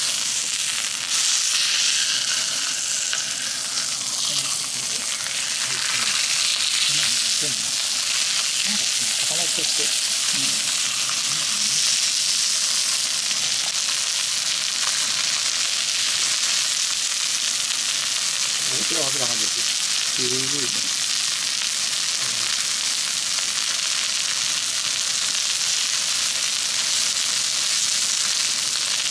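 Chicken thigh steak frying in its own fat on a hot iron griddle plate, a steady sizzle that grows a little louder about a second in.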